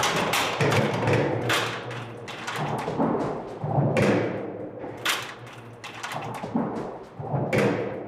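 Background music with deep drum and percussion hits over a low steady tone.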